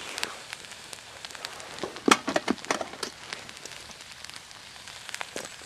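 Sliced potatoes sizzling and crackling in a pot that has boiled dry over a wood-burning camp stove: the water is gone and the food has begun to fry against the hot pot. A few louder clicks and knocks come about two seconds in.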